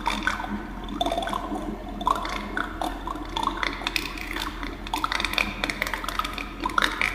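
Wet gurgling and bubbling liquid: a dense, continuous run of small pops and short rising blips.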